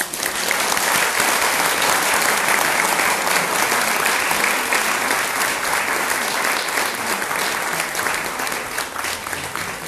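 Audience applauding, breaking out all at once and easing off slightly near the end.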